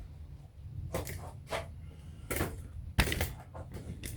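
Several separate sharp clicks and knocks of a small gas string trimmer and tools being handled, the loudest about three seconds in.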